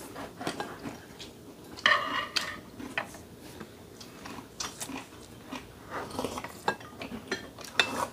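Tableware clinking during a meal: spoons and chopsticks tapping and scraping against bowls and cups in scattered light clicks, the loudest about two seconds in.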